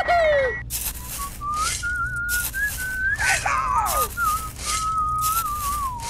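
Background music: a whistled melody wandering around one pitch over a steady beat of about two strokes a second, after a short falling glide right at the start.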